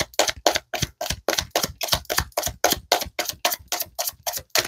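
A deck of tarot cards being shuffled by hand: an even run of quick card slaps, about six a second.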